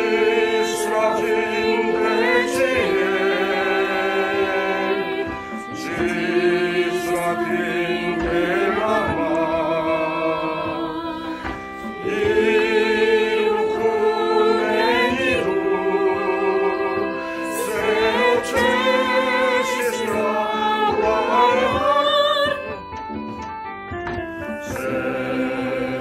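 Mixed choir of men's and women's voices, recorded separately and mixed as a virtual choir, singing a Korean song in Esperanto over instrumental accompaniment. Phrases of a few seconds with held, wavering notes; the music turns softer about three-quarters of the way through.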